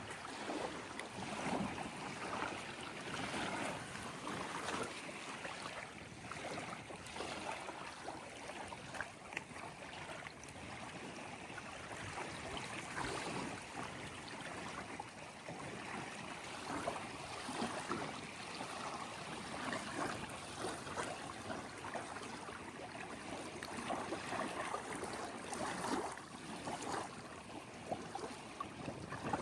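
Water lapping and sloshing in an uneven, continuous wash.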